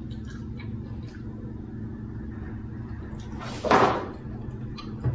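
Someone quietly chewing a filled chocolate, with small mouth clicks over a steady low hum, and a short, loud noisy rush about three and a half seconds in.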